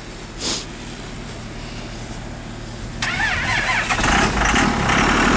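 Cummins diesel engine cold start: the starter whines and cranks for about a second, then the engine catches about four seconds in and keeps running.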